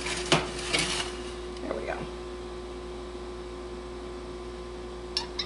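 Steady electrical hum, with two brief sharp clicks in the first second.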